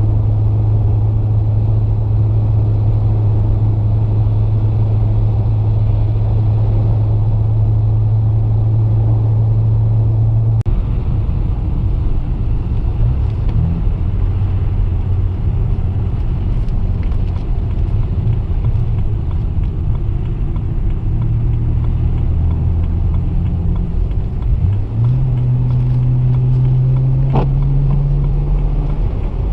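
2008 BMW 335i's twin-turbo N54 straight-six with catless downpipes, heard driving: a steady low drone at cruise, then after a click about ten seconds in the pitch drops and wavers with the throttle, stepping up again near the end as the car pulls away.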